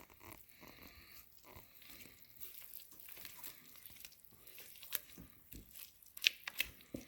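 Wet pumpkin pancake mixture being added to the dry ingredients and mixed in a bowl: faint, irregular soft squishing with scattered sharp clicks, a few louder ones near the end.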